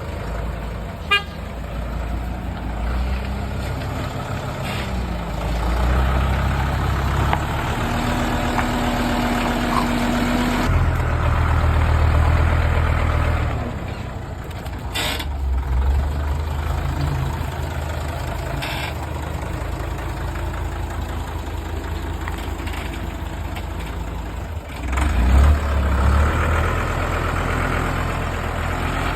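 Heavy machine engine running, its sound swelling and easing several times as the load changes, with a sharp click about a second in.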